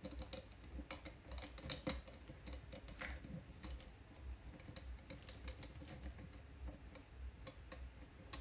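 Faint, irregular small clicks and ticks of a small screwdriver working the screw terminal block of an Arduino motor shield while motor wires are pushed into it.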